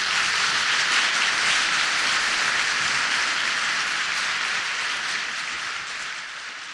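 Applause: a crowd clapping steadily, slowly fading out toward the end.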